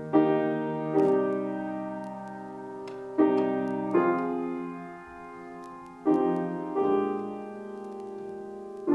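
Solo piano playing a slow, gentle piece in sustained chords. The chords are struck in pairs about a second apart, and each is left to ring and fade.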